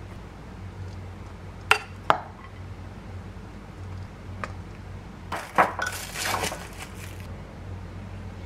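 Metal utensils clinking against a stainless steel mixing bowl and dishes. There are two sharp clinks about two seconds in, then a flurry of clinks and scraping between about five and seven seconds.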